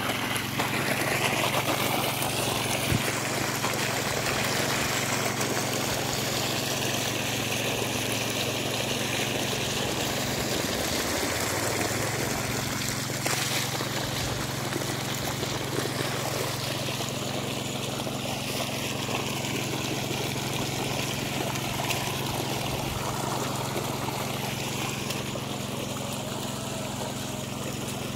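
Water gushing steadily from an irrigation hose onto bare soil, flooding a paddy plot, over a constant low motor hum.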